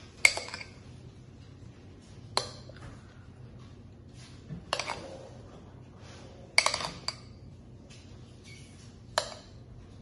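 Metal spoon clinking against a small glass bowl of icing: a handful of sharp clinks with a short ring, spaced about two seconds apart, the loudest near the start and in the middle.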